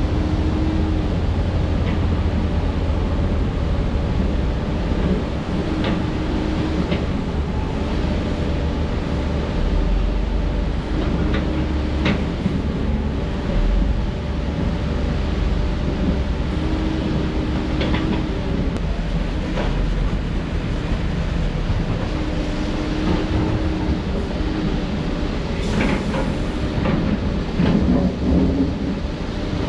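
Diesel engines of heavy earthmoving machinery running with a steady low rumble. A short whine comes back every few seconds, and scattered clanks and scrapes of rock and metal sound through it.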